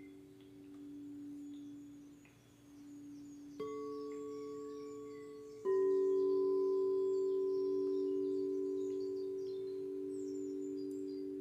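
Singing bowls ringing: low tones sustain throughout, then bowls are struck twice, about three and a half and five and a half seconds in. Each strike starts sharply and rings on, slowly fading. The second strike is the loudest.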